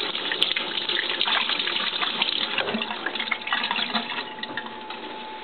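Kitchen tap running while hands are washed under the stream, an even rush of water with uneven splashing, a little quieter near the end.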